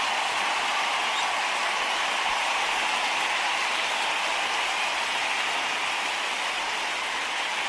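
A steady, even rushing noise with no breaks and no hits, strongest in the middle and upper range.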